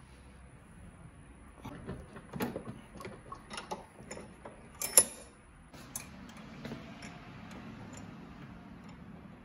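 A 3/16-inch steel rod being handled and bent in a bench vise: a run of small metallic clicks and taps, with one sharp clank about five seconds in.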